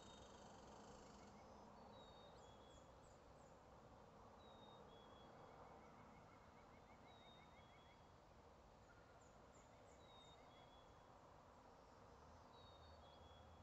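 Faint distant dawn birdsong: several birds giving short high whistled notes again and again, with a rapid trill about six seconds in, over a steady low hiss.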